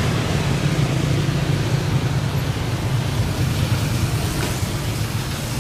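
Jet airliner engines running: a steady rushing noise over a low hum, easing slightly near the end.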